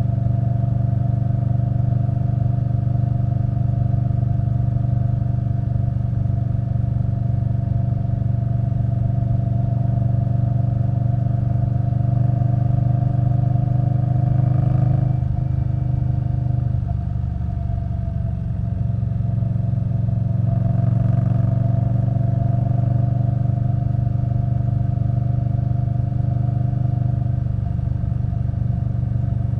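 2021 Indian Scout Bobber Twenty's V-twin engine through V&H Twin Slash exhaust, running steadily at cruise. About halfway through the note drops off as the throttle is rolled back, then rises again and settles into a steady cruise.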